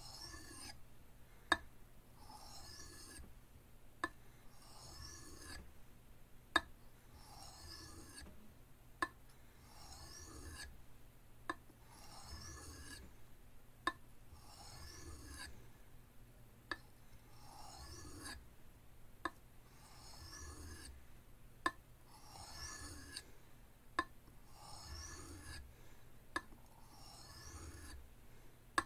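Knife blade stroked across an oiled soft Arkansas sharpening stone in light, even scraping passes, two strokes between sharp clicks that come about every two and a half seconds, as the edge is refined.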